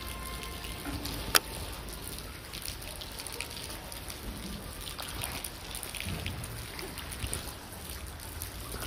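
Steady noise of running water and falling rain, with a single sharp click about a second and a half in.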